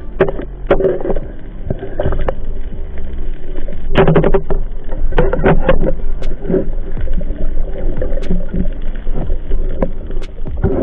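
Underwater water rushing and sloshing picked up by a diver's camera, with many sharp clicks and knocks, bunched about four and six seconds in, as a spearfisher moves with a speared fish on the spear.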